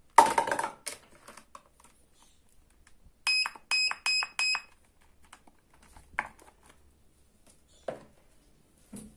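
Toy cash register's keypad beeping: five short electronic beeps at one pitch in quick succession, one per key press, about three seconds in. Near the start a loud plastic clatter, and later a few soft plastic knocks.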